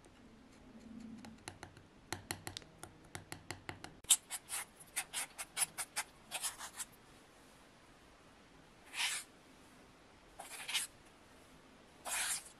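A metal spoon working thick paste in a steel bowl: a quick run of clicks and taps against the bowl, about five a second, then three short scrapes as the paste is scooped out.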